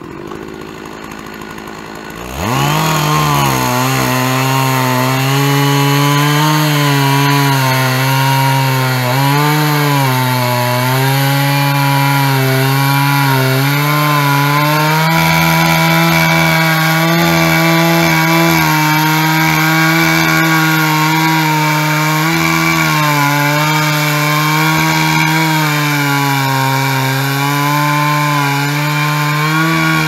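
Stihl 660 two-stroke chainsaw on a Norwood PortaMill PM14 chainsaw mill, revving up to full throttle about two seconds in and then running steadily under load as the bar rips lengthwise through a log. Its pitch dips and recovers slightly as the cutting load changes.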